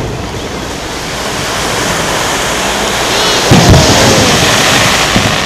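Aerial fireworks shells going off: a deep boom about three and a half seconds in, with a short whistle just before it, and another boom near the end. A steady rushing noise builds up underneath.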